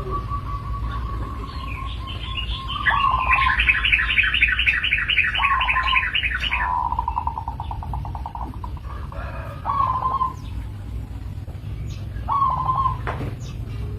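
Zebra dove (perkutut) cooing: short notes and a pulsed trill with a held note, repeated several times. A faster run of higher notes comes in about three seconds in and stops near the middle, over a steady low rumble.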